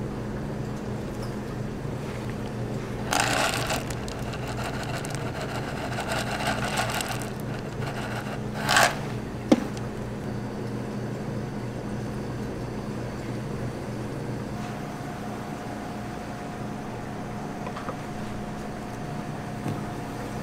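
Steady low electrical hum of shop equipment. Over it come a few short noises of handling at the counter, with a brief loud burst about nine seconds in, followed by a sharp click.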